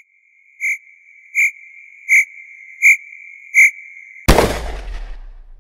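Logo intro sound effect: a steady high electronic tone with five beeps about three-quarters of a second apart, then a sudden loud boom that dies away over about a second.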